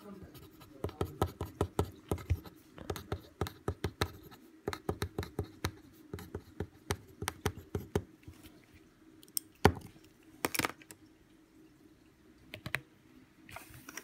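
Mechanical pencil with a fountain-pen-style nib tip writing on paper: a quick run of short scratches and taps from the strokes of the letters over the first half. This is followed by a few louder knocks and rustles of handling.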